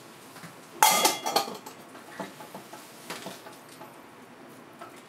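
A small dish set down on the floor with a sharp clatter about a second in, then a few lighter clinks of the dish as a cat eats from it.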